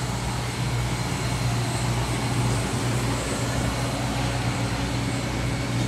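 Steady drone of running machinery: a low hum with an even hiss over it, unchanging throughout.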